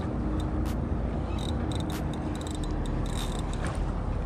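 Penn Fierce III 6000 spinning reel being cranked as a hooked snook is reeled in, giving irregular mechanical clicks and an on-and-off thin high whine over a steady low rumble.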